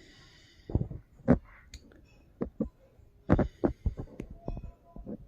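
A series of irregular low thumps and short knocks, about a dozen, with the loudest pair about a second in and another cluster past the middle.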